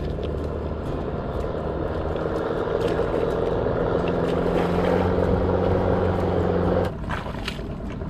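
Small boat engine running steadily, louder through the middle, then dropping off abruptly about seven seconds in.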